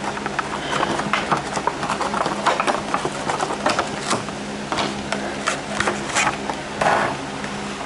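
Stiff clear plastic blister pack crackling and clicking in quick irregular bursts as it is pried and pulled away from its torn cardboard backing by hand.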